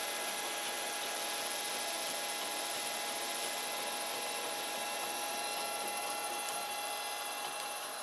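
Steady whir of a running FDM 3D printer's cooling fans, with a constant hum.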